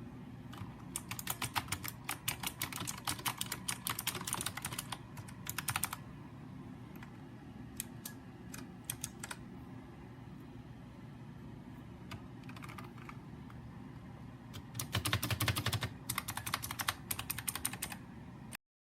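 Typing on a Razer Huntsman Mini 60% keyboard with optical switches: a fast run of keystrokes, then scattered single key presses, then another fast run near the end before the sound cuts off.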